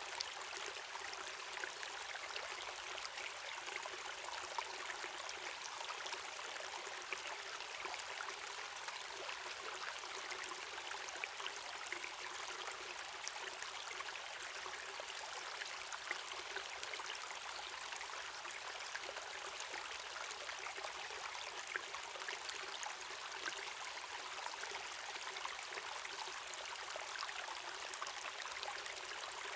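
Waterfall and stream water running steadily: an even rushing hiss, bright rather than deep, with fine splashing and trickling throughout.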